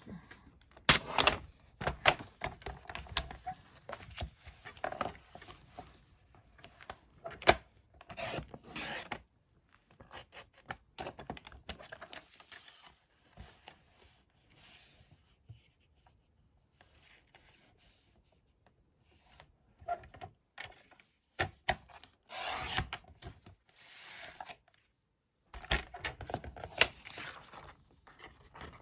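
Card stock and a plastic paper trimmer being handled on a wooden desk: irregular knocks and taps with rubbing and sliding of paper.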